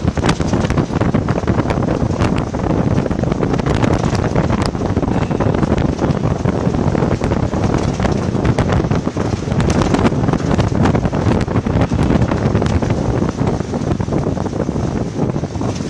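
Loud, steady wind buffeting the microphone over the low rumble of moving vehicles, with frequent short clicks and knocks.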